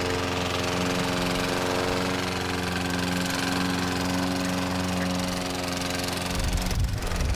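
Gasoline push lawn mower engine running at a steady pitch. Near the end a rougher low rumble comes in.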